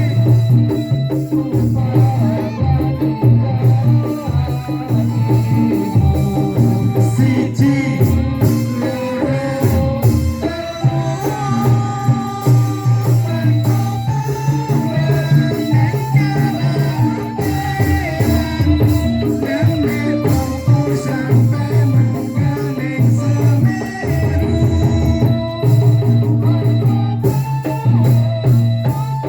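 A live band playing a song, with a steady, heavy bass beat, light shaken percussion and a melody, and a female singer's voice in places.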